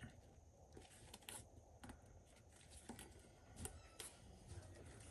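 Near silence: a low room rumble with faint scattered light clicks and rustles, the sound of a grip wrap being wound by hand around a pickleball paddle handle.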